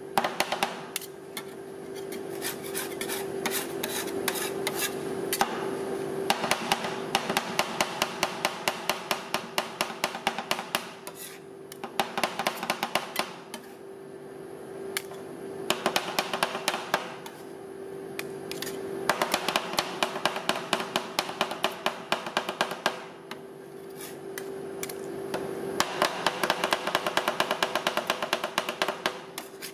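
Two metal spatulas chopping ice cream mixture on a frozen steel cold plate: rapid clattering taps of metal on metal, in bursts of several seconds with short pauses between them, as the base is chopped and mixed while it freezes.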